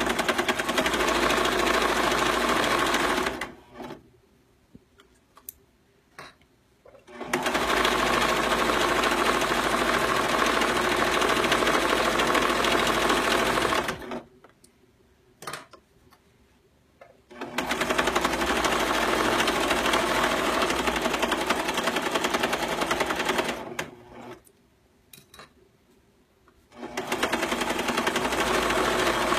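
Domestic sewing machine stitching a seam through towel fabric. It runs steadily in long stretches and stops three times for a few seconds, with a few light clicks in the pauses.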